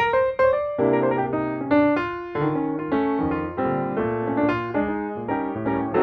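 Piano music: a run of notes, several sounding together, with a new note or chord about every half second.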